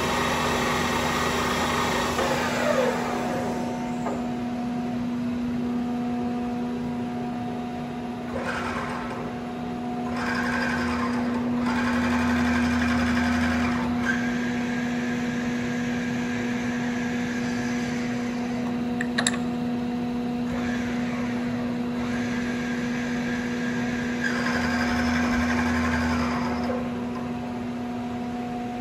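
WMW Union BFT 90 horizontal boring and milling machine running with a steady hum. Its drives whine in runs of a few seconds as the table and spindle are moved. A higher whine falls away about three seconds in, and there is a single click a little past the middle.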